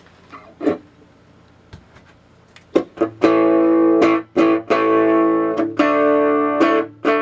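Electric guitar strummed through a small three-tube amplifier (12SQ7 preamp, 50L6 output) driving four small home theater speakers, turned all the way up. A few soft single notes come first, then chords ring out from about three seconds in, with quicker strums near the end. The player judges the tone poor ('it sucks'), with not much volume even at full volume.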